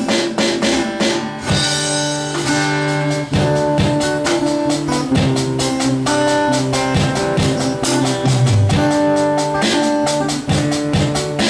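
Acoustic guitar strummed in chords together with a Roland electronic drum kit played in a busy, steady beat.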